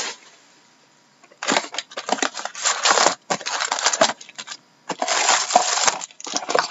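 Crinkling and rustling of trading-card foil packs and box wrapping being handled and pulled out of a hobby box, in irregular bursts starting about a second and a half in.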